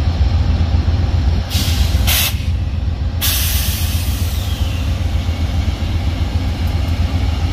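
Diesel train locomotive running with a steady, loud low rumble, while the train's air brakes let out sharp bursts of hiss about a second and a half in and again about three seconds in, the last one fading away.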